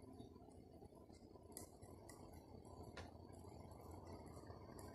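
Near silence: faint steady background noise with a few light clicks.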